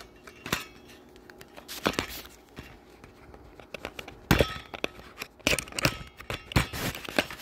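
Hands handling a wireless doorbell and its packaging: scattered clicks, knocks and rustles. The loudest knock comes about four seconds in, followed by a quick run of clicks.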